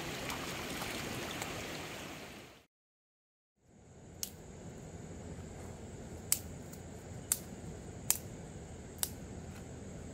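Flowing stream water rushing, then cut off abruptly by about a second of silence. After that comes a quieter background with a steady faint high tone and five sharp clicks spaced roughly a second apart.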